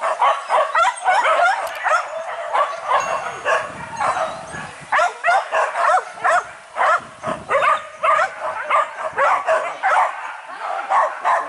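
Hunting dogs barking and yelping in rapid, overlapping calls, several a second.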